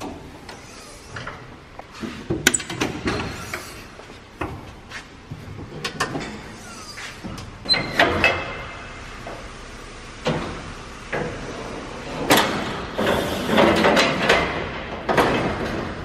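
Metal access panels and the swing-out ladder on a John Deere 9650 STS combine being opened and moved by hand: irregular clanks and latch clicks with stretches of sheet-metal scraping, busiest in the last few seconds.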